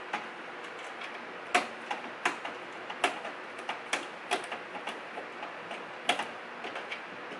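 Screwdriver working a small screw into a graphics card's mounting bracket in a PC case: irregular sharp metal clicks and ticks, the loudest about one and a half, three and six seconds in.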